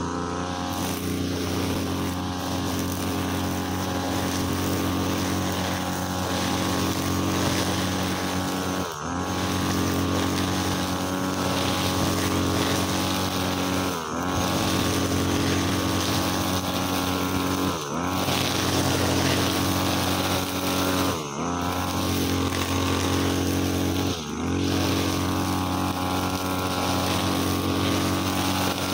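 43cc two-stroke brushcutter engine running at high revs while its 2.8 mm nylon trimmer line cuts short, thin grass. Several times the engine speed dips briefly and picks back up.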